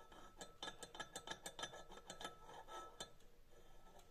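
Faint, irregular small metallic clicks and scrapes of a steel vernier caliper shifting against the rim of a Zetor tractor cylinder liner while it is being measured.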